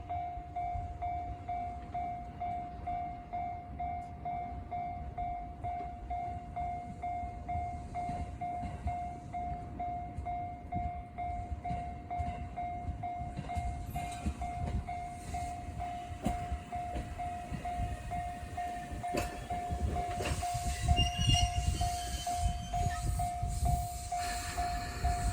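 Japanese level-crossing warning bell ringing on and on in even pulses while a train rumbles past, the train growing louder about twenty seconds in with a brief high squeal.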